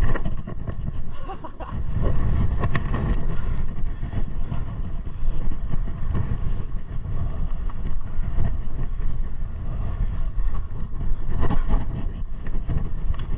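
Wind buffeting a body-worn camera microphone during a run down a groomed slope, a steady low rumble, mixed with the scraping hiss of short snowblades sliding over snow. A couple of brief scrapes stand out, about three seconds in and near the end.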